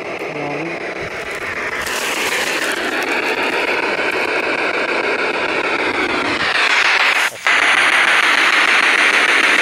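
Static hiss from a ghost-hunting radio sweep device, with faint gliding tones as it scans. It grows louder, cuts out briefly with a click about seven seconds in, then carries on as a steady loud hiss.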